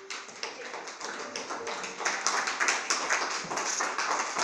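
A small group of people clapping their hands in applause, growing louder about two seconds in.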